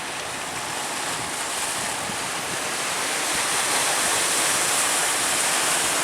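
Surf breaking and rushing, with strong wind buffeting the microphone; the rush swells about halfway through.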